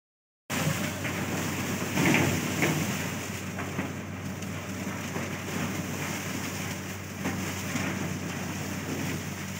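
Steady sugar mill machinery noise from the cane feeder and carrier: a low electric-motor hum under a continuous rushing clatter, a little louder about two seconds in.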